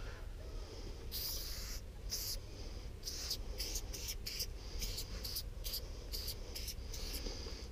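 600ml Molotow copper chrome spray paint can hissing as it sprays. There are a couple of longer blasts in the first two seconds, then a run of short, quick sprays from about three seconds in.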